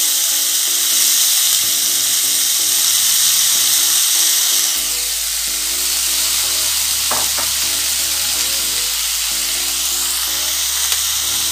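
Freshly chopped fenugreek leaves sizzling steadily in hot mustard oil in a non-stick kadhai, over background music with a stepping melody; a bass line comes in about five seconds in.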